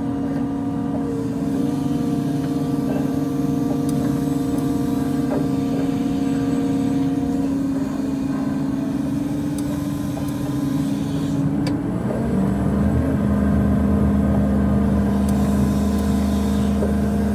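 Rough-terrain crane's diesel engine and hydraulics running in the cab with a steady whine; about twelve seconds in, the tone drops lower and a deeper, slightly louder engine note comes in as the throttle pedal is worked.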